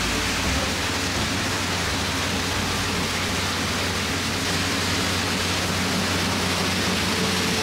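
A diesel-driven riverboat paddle wheel churning the river: a steady rush of splashing, foaming water.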